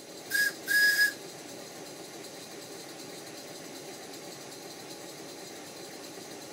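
Two short toots on the steam whistle of a 5-inch gauge GWR 14XX live-steam model locomotive, one steady high note, the second toot a little longer. Then the locomotive keeps running under steam with a steady, even hiss.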